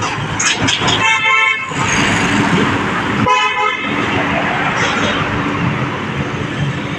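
A vehicle horn tooting twice, two short blasts about two seconds apart, over steady street traffic noise.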